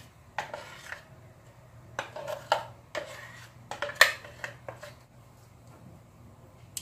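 A metal spoon scraping and knocking against the inside of a blender jar to clear out thick sauce, in several short scrapes and clinks, the sharpest about four seconds in.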